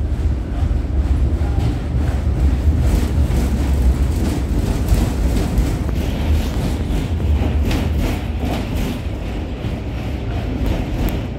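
Interior ride noise of a V3A-93 articulated tram in motion: a steady low rumble with scattered clicks and knocks.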